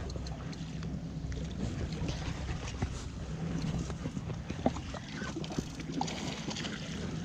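Wind rumbling on the microphone, with a few faint clicks and knocks scattered through it.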